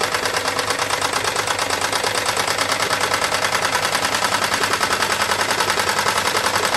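Wilesco D22 model steam engine running fast, its exhaust steam beating out a rapid, even chuff through a chuff pot.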